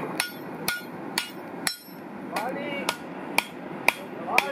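Blacksmith's hand hammer striking an orange-hot iron bar on a chain-wrapped anvil, about two blows a second with a short pause near the middle; each blow leaves a short ring.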